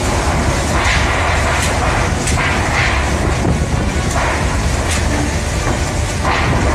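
Typhoon-force wind blowing in gusts that swell every second or two, with a low rumble of wind buffeting the phone's microphone.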